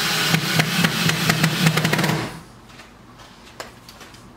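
Ryobi cordless drill driving a screw into wood, the motor running with a rapid clatter of clicks for about two seconds before it stops.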